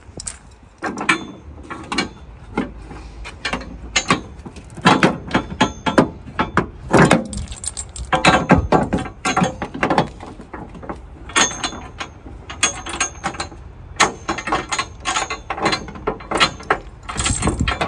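Steel chain rattling and clanking against metal as it is handled and hooked up, a long irregular run of sharp clinks and knocks.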